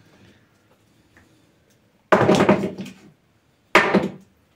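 Two loud, sudden thuds about a second and a half apart, each fading out over most of a second, as a recycled-plastic sleeper joined with dog-bone splints is stressed to test the joint.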